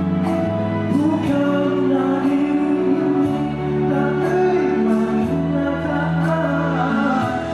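A man singing into a microphone over backing music, holding long notes with a wavering vibrato while the bass notes change beneath him.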